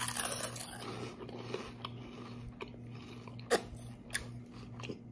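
A person biting into and chewing Monster Munch roast beef corn snacks: a crunchy bite at the start, then scattered crunches as they are chewed, the sharpest about three and a half seconds in. A steady low hum runs underneath.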